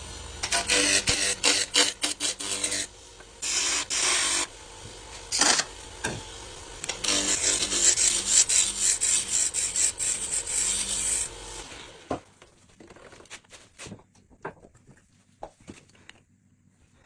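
Harvey T-40 Turbo wood lathe running with a turning tool cutting into the spinning wood in several long scraping bursts over a steady motor hum. The lathe stops about twelve seconds in, leaving only a few light taps.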